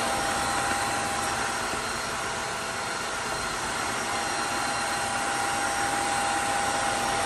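Tineco Floor One S5 Pro cordless wet-dry vacuum mop running on max mode: a steady motor whine holding one constant tone over the rush of suction air.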